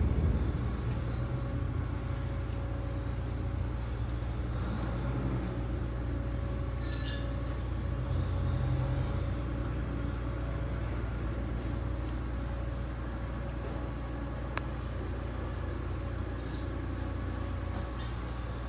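Steady machine hum over a low rumble, like a motor running, with one sharp click about fourteen seconds in.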